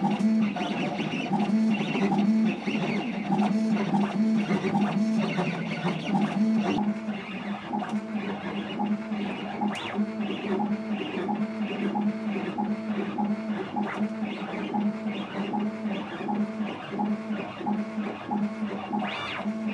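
Stepper motors of a DIY CNC machine whining in steady, shifting tones with a rhythmic pattern as the axes move a drag-engraving needle across an acrylic sheet.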